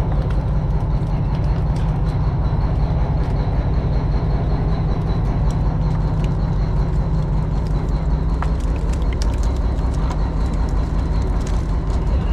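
Fishing boat's engine running steadily with a deep drone, over water from a deck hose gushing and splashing onto baskets of fish, with scattered knocks of baskets and fish.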